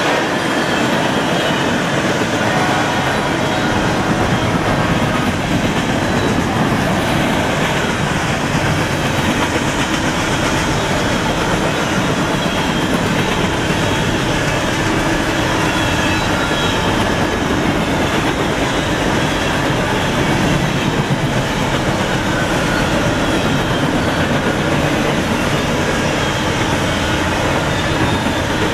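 A long freight train of coal cars passing at speed: a loud, steady rumble of steel wheels rolling on the rails.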